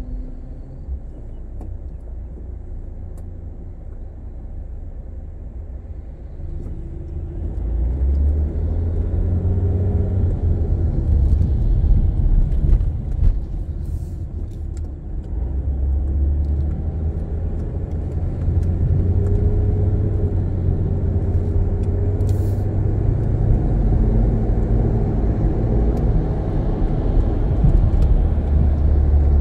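Car's own engine and road noise heard from inside the cabin: a low rumble, quieter while the car waits in traffic, then louder from about a quarter of the way in as it pulls away and gathers speed.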